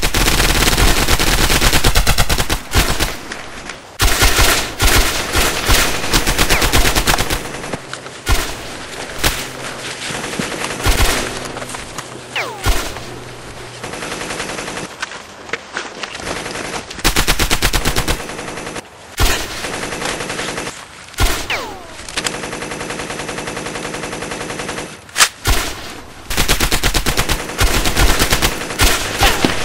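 Gunfire sound effects of a World War II firefight: several long bursts of rapid machine-gun fire, with single rifle shots in the gaps between them.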